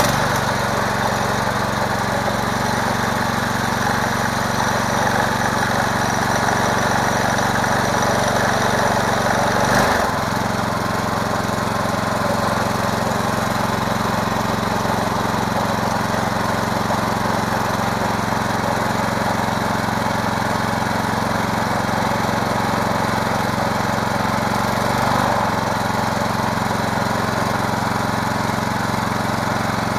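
212cc Predator single-cylinder four-stroke engine on a mini bike running steadily at idle with freshly changed oil. About ten seconds in its speed briefly sags and picks back up.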